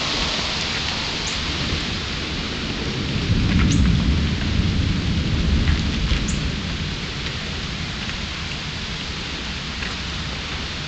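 Steady rain falling, an even hiss, with a low rumble that swells about three seconds in and dies away a few seconds later.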